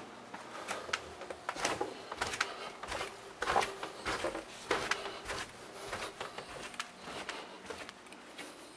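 Footsteps going down a carpeted staircase, with handling noise from the hand-held camera: a run of irregular knocks and rustles, about one or two a second, growing fainter near the end.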